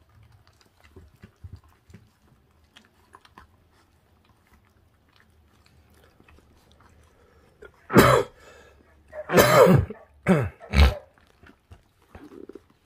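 Puppies chewing and tearing at raw meat, with faint scattered wet clicks. About eight seconds in come four loud, short sounds in quick succession, the second the longest.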